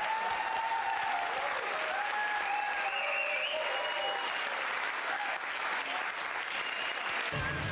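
Talk-show studio audience applauding steadily, with a few calls from the crowd within it. Music comes in just before the end.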